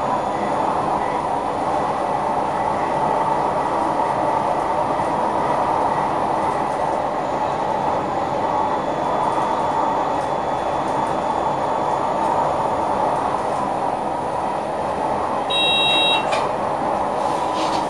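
Steady running noise of an NS Sprinter Lighttrain electric multiple unit, heard from inside the driver's cab while the train is moving. About three-quarters of the way through, a short high electronic beep sounds once in the cab.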